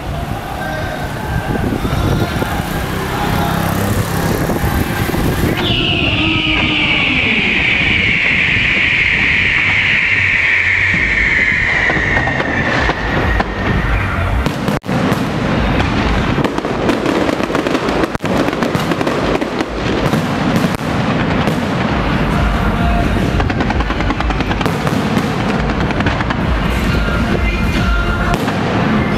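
Aerial fireworks banging and crackling densely in quick succession. A long shrill tone falls slowly in pitch from about six to thirteen seconds in.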